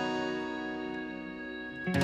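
Background music: a plucked-string instrument lets a chord ring and slowly fade, and a new chord is struck just before the end.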